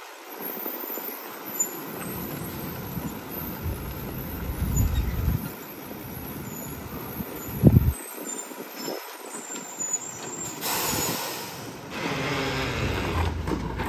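1997 Mack RD rear-loader garbage truck's diesel engine pulling away and running, with a short loud thump a little past the middle. Near the end the air brakes let out a hiss lasting about a second as the truck stops.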